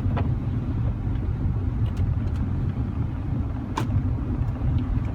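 Car driving, heard from inside the cabin: a steady low rumble of engine and road noise, with a few light ticks.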